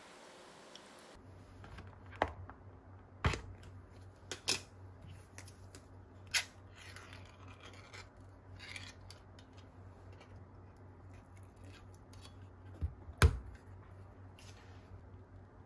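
Kitchen prep handling sounds: scattered light clicks and knocks with a few short scraping or snipping noises, over a low steady hum. The loudest is a sharp knock near the end.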